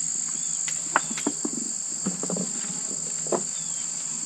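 Steady high-pitched insect chorus droning throughout, with a handful of short sharp clicks and taps about a second in, around two seconds in and just past three seconds.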